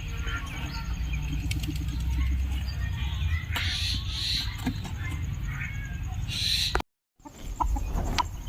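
Chickens clucking and chirping on and off over a steady low rumble. The sound drops out completely for a moment near the end.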